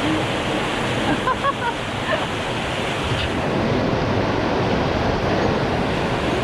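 Mountain stream rushing over rocks in a steady, loud rush of water.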